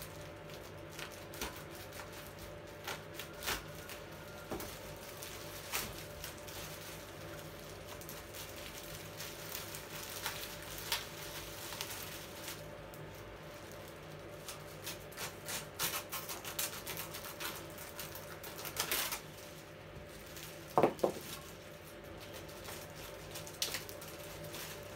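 Plastic packaging wrap crinkling and crackling in scattered short bursts as it is unwrapped by hand from a new animatronic's head, with one louder rasp about three-quarters of the way through, over a faint steady hum.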